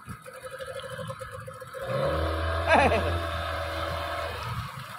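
Small outboard motor running on the boat doing the towing, louder for a couple of seconds from about two seconds in, with water washing past the hull.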